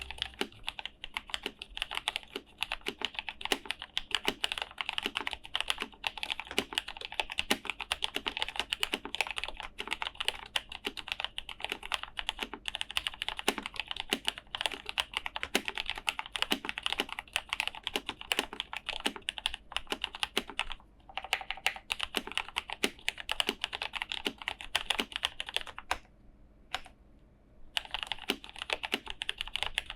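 Continuous typing on a Cherry G81-1000 mechanical keyboard with lubed and filmed Cherry MX Black linear switches and tuned screw-in stabilizers, giving a very smooth keystroke sound. Typing pauses briefly about two-thirds of the way through, then stops for nearly two seconds near the end before resuming.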